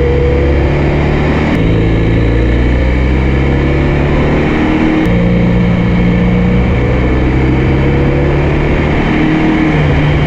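BMW F800GS parallel-twin engine running steadily while the motorcycle is ridden, with wind rush over it; the engine note changes twice, about one and a half and five seconds in.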